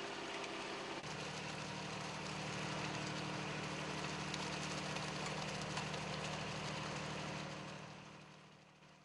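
Dingo mini loader's engine running steadily while its hydraulic drive turns the cement mixer bowl in reverse to empty out the concrete. The engine note changes about a second in, and the sound fades out near the end.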